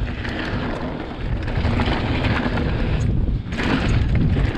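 Riding noise from a 2020 Vitus Sommet CRS mountain bike descending a dry dirt trail: tyres rolling and wind rushing over the action camera's microphone, with light rattles from the bike over bumps. The noise dips briefly about three seconds in.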